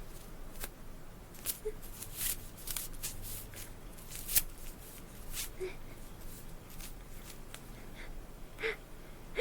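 Quick breathy sniffs and snuffles from a person's nose, about a dozen in the first five seconds, with a couple of small squeaks and a short gasp near the end: a build-up toward a sneeze.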